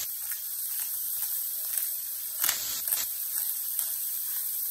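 Shredded cabbage frying in bacon grease in a pot: a steady high sizzle, with a couple of sharp taps about two and a half and three seconds in.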